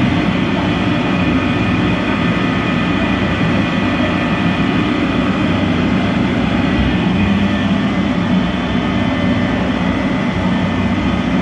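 PVC artificial marble sheet extrusion line running: a steady mechanical din with a few faint, high, unchanging whines over it.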